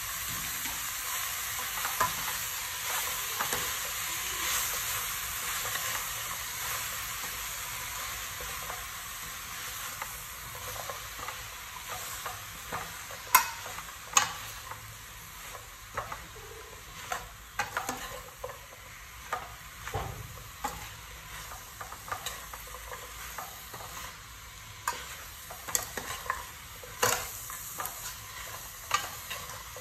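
Chopped vegetables sizzling in a stainless steel pot while a metal spoon stirs them, with frequent scrapes and clinks of the spoon against the pot, coming more often in the second half. The sizzle is loudest at the start and eases off slowly.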